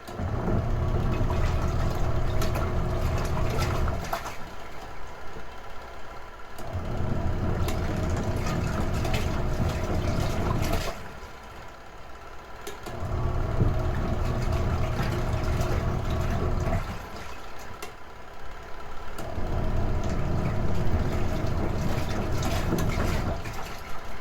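Retro-style washing machine in its wash cycle: the motor and agitator run for about four seconds, pause for about two, and start again, four runs in all, with water churning in the tub.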